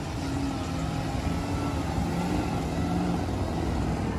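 Lifted diesel pickup's engine running hard under throttle as it plows through a mud pit, a steady low engine drone that grows slightly louder.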